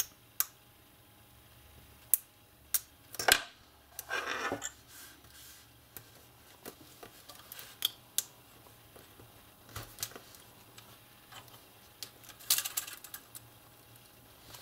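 Small sharp clicks and short scrapes of a hobby knife and fingernails working a strip of plastic SMD carrier tape, cutting it and peeling it open to free a tiny 0603 LED. The clicks come scattered, the loudest about three seconds in, with brief scraping just after it and again near the end.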